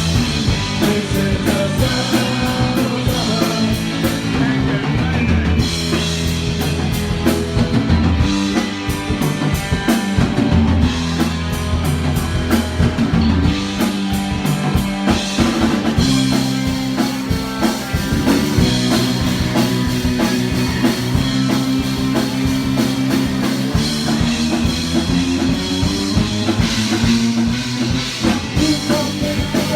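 Live punk rock band playing loud: distorted electric guitars, bass guitar and a drum kit keeping a steady driving beat.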